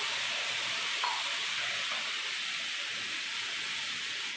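Milk sizzling as it hits a hot pan of grated beetroot fried in ghee: a steady hiss that slowly eases off, with a brief tick about a second in.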